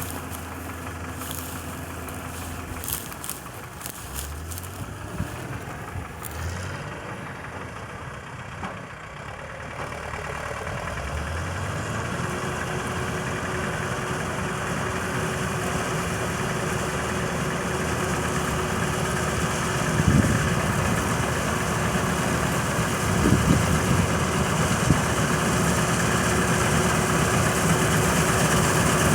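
John Deere 955 combine harvester running, growing steadily louder, with a steady whine coming in about twelve seconds in and a few knocks later on.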